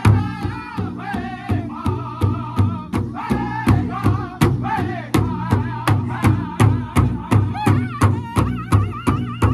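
Powwow drum group singing an intertribal song: several men's high, wavering voices over a steady unison beat on a big rawhide-headed powwow drum struck by many drumsticks together.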